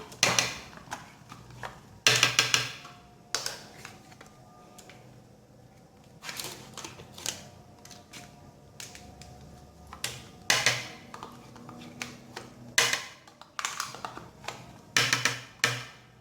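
Scattered sharp clacks and taps of kitchenware, a spoon or container knocking against a blender jug, as yogurt is put in. There are about a dozen knocks with short pauses between them, and the blender motor is not running.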